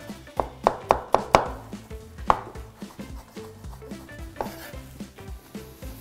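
Kitchen knife knocking on a wooden cutting board as strawberries are sliced: a quick run of about five knocks in the first second and a half, one more knock about a second later, then fainter, scattered knocks.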